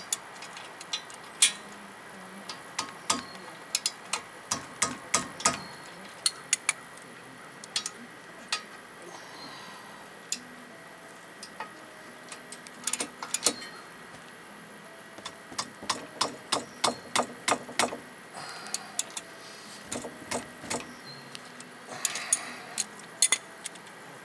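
Sharp metal clicks and clinks, often in quick runs of several a second, from a hand wrench working the front disc brake's caliper bracket bolts as they are tightened down.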